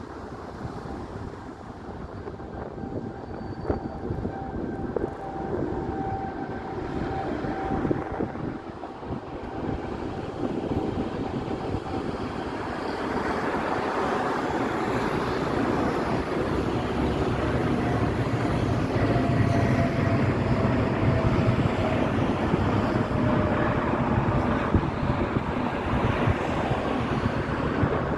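Aeroplane taking off: engine noise and rumble building steadily louder through the takeoff roll, with a faint whine that drifts slowly lower.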